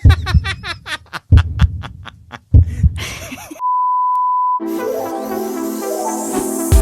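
Edited intro music: an upbeat track with heavy kick drums and a vocal line, cut about halfway by a steady one-second beep, then a held synth chord with a rising sweep.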